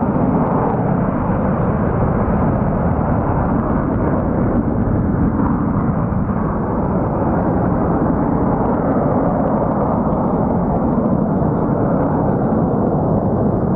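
Swiss Air Force F/A-18 Hornet's twin turbofan jet engines, a loud, steady roar as the fighter flies away low along the mountain valley.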